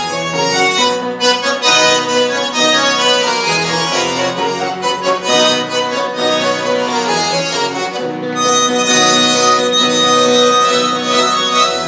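Two accordions playing a duet with piano accompaniment, held reedy chords over a pulsing bass line.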